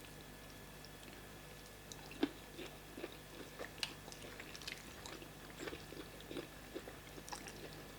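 Close-up eating sounds of fufu and soup: faint wet chewing and lip smacks, a few irregular clicks a second starting about two seconds in, over a steady low hum.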